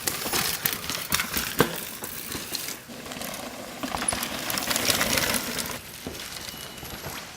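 Downhill mountain bike rattling over rough trail: a run of sharp clicks and knocks over the rushing hiss of tyres on dirt and rocks.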